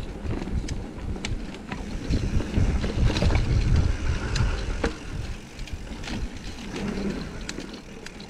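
Mountain bike being ridden over rooty singletrack: a low rumble with frequent sharp clicks and rattles, loudest a few seconds in and easing off toward the end.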